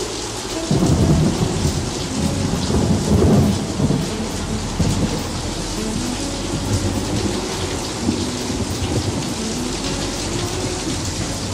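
Steady rain falling, with a loud low rumble of thunder starting about a second in and rolling for about three seconds before easing back into the rain.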